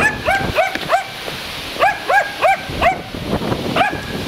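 A dog barking in short, sharp barks: a quick run of four, then four more about two seconds in, and a single bark near the end.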